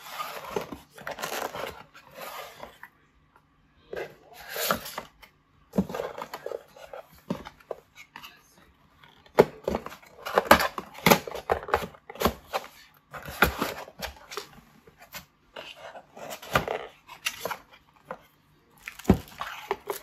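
Cardboard inserts of a laptop box being handled: irregular sliding, scraping and sharp taps of the cardboard, with plastic wrap crinkling near the end.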